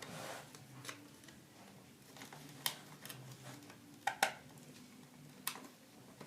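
Electrical wires and small fittings being handled while connections are made, giving a short rustle and then a few sharp, irregular clicks and ticks, the loudest a quick pair about four seconds in.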